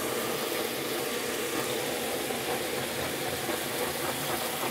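Handheld butane kitchen blowtorch burning with a steady hissing flame, aimed into a pan of squid frying in oil, with the frying sizzle under it. The torch adds heat because the pan is not hot enough.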